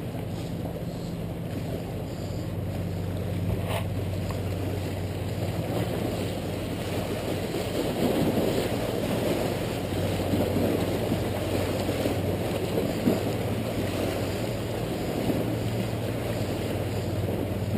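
Sea waves washing and splashing against jetty boulders, with wind buffeting the microphone and a steady low hum underneath. The wash grows louder about eight seconds in.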